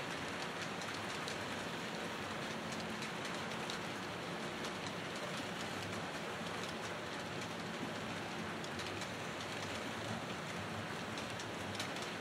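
HO scale model train running on the layout: a steady hiss of wheels and motor on the track, with faint light clicks.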